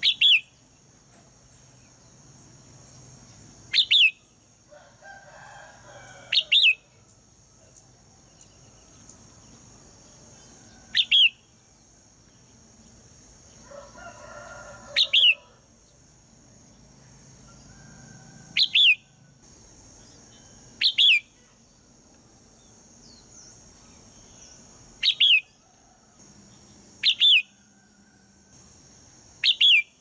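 Red-whiskered bulbul giving sharp, high call notes that drop quickly in pitch, mostly as quick double notes, repeated about ten times at intervals of two to four seconds.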